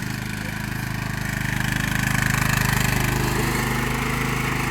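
Lawnmower engine running steadily, growing a little louder over the first two seconds.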